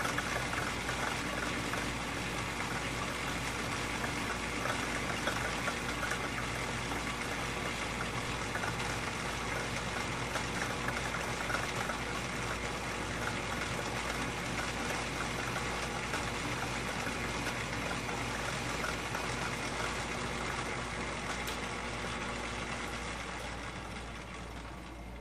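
Atlas metal lathe running steadily under power, machining a block held in a four-jaw chuck, with a steady motor and gear whine. Near the end the lathe is switched off and the whine dies away as the chuck spins down.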